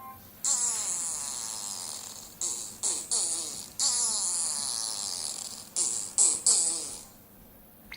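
Electronic sound effect of a Sphero 2.0 preset action, played by the controlling device: high hissing noise with repeated falling whistle-like glides, in several bursts lasting about six and a half seconds.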